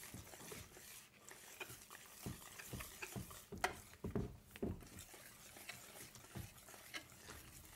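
A wire balloon whisk stirring thick pancake batter in a mixing bowl: faint, irregular strokes a few times a second as the wires scrape and tap through the batter against the bowl.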